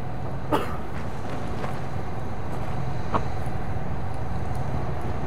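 Diesel engine of a LAV III armoured vehicle idling in a steady low hum, with two brief knocks, about half a second in and about three seconds in.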